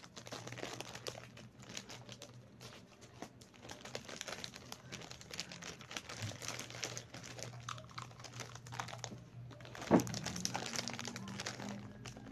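Plastic wrappers of Fudgee Barr snack cakes crinkling as a handful of packs is handled and bunched together, in dense rapid crackles, with one sharp knock about ten seconds in.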